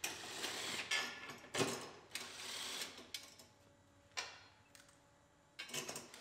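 Mechanical clicking and rattling from tools and metal parts as a lower bumper bracket is fitted on a pickup's front end, in several short bursts with a sharp knock about four seconds in.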